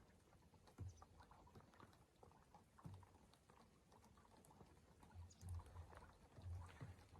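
Near silence, with faint scattered clicks and soft low thuds.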